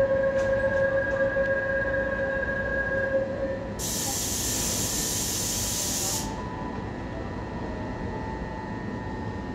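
A stationary ITX-Saemaeul electric train at a station platform. A steady high electronic tone sounds until about three seconds in. Then a loud hiss of compressed air is vented for about two seconds, over the train's low running hum.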